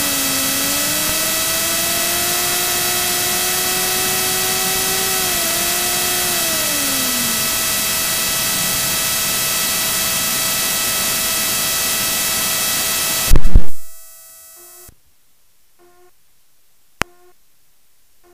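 Cirrus SR22 cockpit noise: a loud steady rush from the running engine with a whine that slides down in pitch, climbs back and then falls away over the first several seconds. About thirteen seconds in, a loud burst comes and the noise cuts off abruptly, leaving only faint ticks and one sharp click.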